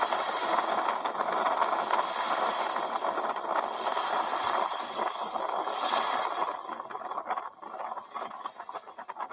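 Wind-driven waves breaking against a low oyster reef and washing up a marsh shoreline: a steady rushing of surf and wind that fades and turns patchy about six and a half seconds in.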